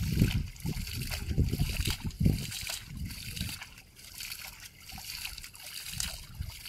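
Shallow floodwater splashing and sloshing as a man scoops and throws water by hand and wades. The splashes come irregularly, heavier in the first few seconds and once more near the end.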